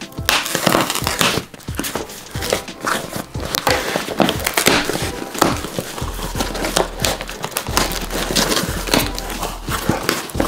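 A cardboard box being opened by hand: packing tape is slit with a pen and the flaps are pulled open, giving irregular scratching, tearing and crinkling of tape and cardboard.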